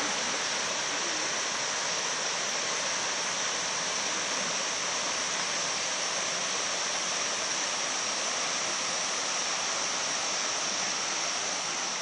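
Steady rushing of water from small cascades spilling into a pool. The falls are running low in the dry season. A steady high hiss sits above it.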